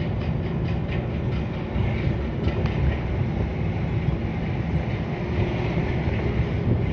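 Steady engine and road rumble from inside a moving van, with a few light rattles and clicks.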